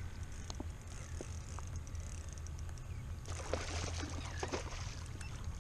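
Hooked jack crevalle thrashing at the surface beside a kayak: a burst of splashing about three seconds in that lasts a second or two. A steady low rumble runs underneath, with small drips and ticks of water.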